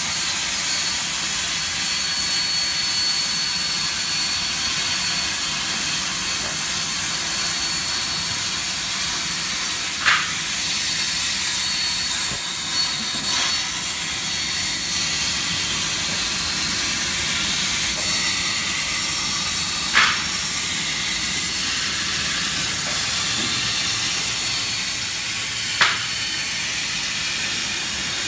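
CNC plasma cutter's torch cutting a bevel in steel plate: the plasma arc's steady hiss with a thin high whistle, broken three times by a short sharp pop.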